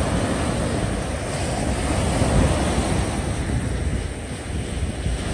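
Outdoor seaside ambience: wind buffeting the microphone with a rumble over the wash of sea waves.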